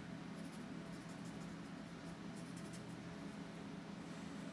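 Faint scratching and rubbing of a hand-held drawing tool worked over thick drawing paper in a run of short, quick strokes.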